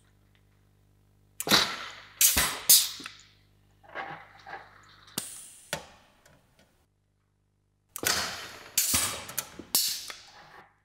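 Clinching tool punching clinch joints through galvanised sheet steel: sharp metallic clacks with short ringing tails, coming in three groups of three or four strikes.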